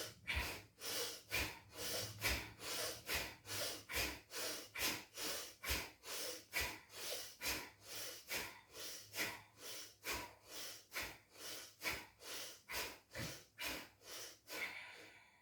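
Bhastrika (bellows breath) pranayama: rapid, forceful breathing in and out, sharp noisy breaths at an even pace of about two a second.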